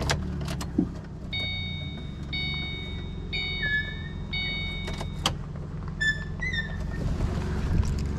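A vehicle engine running steadily. For a few seconds a warning chime of several steady tones sounds about once a second.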